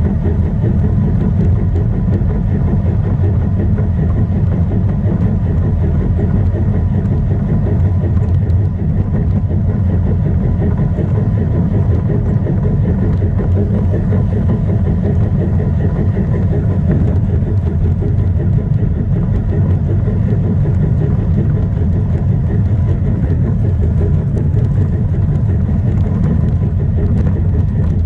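Model garden-railway train's motor and gears running steadily along the track, heard up close from on board: a continuous low rumble with a faint steady whine over it.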